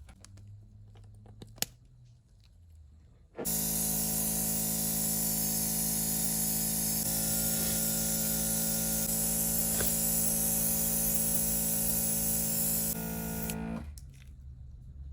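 Loud steady spraying hiss with a steady pitched hum underneath, starting abruptly about three and a half seconds in and cutting off near the end, after a slight drop about a second before it stops.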